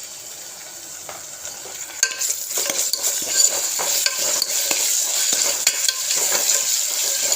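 Onions frying in hot oil in a pressure cooker, being stirred with a spoon that scrapes and clicks against the pot. About two seconds in the sizzle gets louder as ginger and garlic go into the oil.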